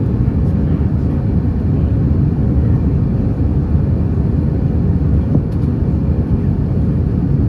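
Steady cabin noise of an Airbus A320 airliner heard from a window seat: a constant low rumble from the jet engines and airflow, with a faint steady hum above it.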